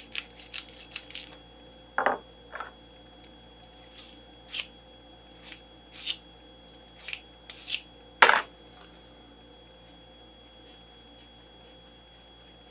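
Brass .223 rifle cases being cleaned up by hand: a string of short scraping or rubbing strokes about a second apart, with small clicks, and one sharp clack about eight seconds in.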